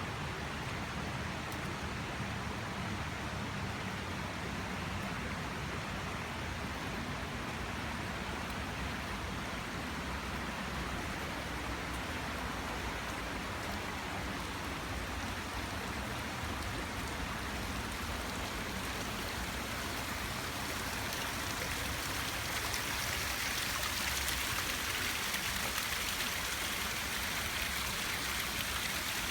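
Steady rush of flowing water from a stream or waterfall, growing louder about two-thirds of the way through.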